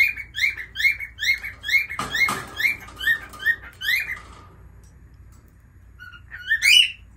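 Caged lovebird calling in a fast run of short, sharp chirps, about three a second, which stops about four seconds in; near the end a louder cluster of rising squawks follows.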